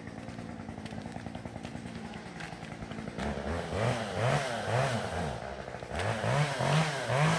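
Small petrol engine idling steadily, then from about three seconds in revved up and down again and again in quick blips, growing louder.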